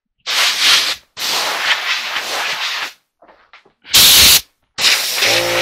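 Compressed air from a blow gun hissing in bursts as a man blows sawdust off himself, the air blasting across the microphone: two longer bursts, then a short, loudest blast, then a steadier one. Near the end a steady machine hum with a pitched tone starts up under the air.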